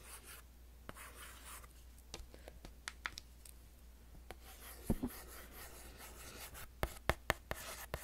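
A pen writing on a small pad held close to the microphone: short scratchy strokes, with a few sharp clicks, several of them in the last three seconds.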